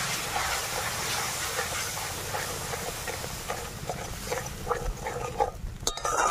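Spice masala hissing and sizzling in hot mustard oil in an aluminium kadai, right after water from rinsing the spice bowl has gone in. The hiss slowly dies down as it is stirred, giving way to short crackles and clicks in the last couple of seconds.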